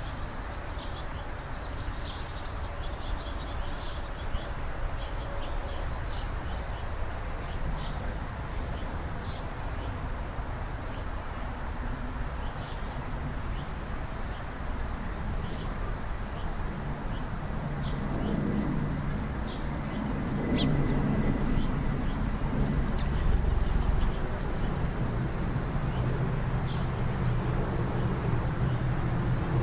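Small birds giving short, high chirps again and again over a steady low rumble. About seventeen seconds in, a low engine sound rises and continues to the end.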